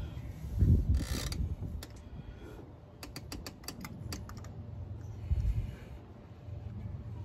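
Metal hand tools clinking and clicking as a spark plug is worked into an engine with a socket and extension: a dull knock about a second in, a quick run of sharp clicks about three seconds in, then another dull knock.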